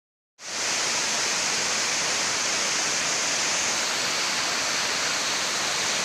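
Waterfall plunging into a rocky pool: a steady, even rush of falling water, with a hissy top. It starts abruptly about half a second in.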